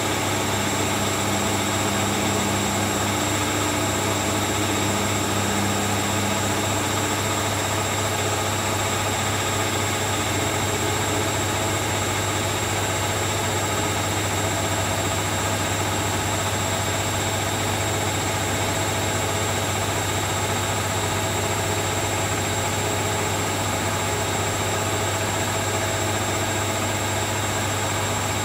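Steady drone of household electrical appliances layered together: a low electrical hum with a high thin whine held over it. No change or break.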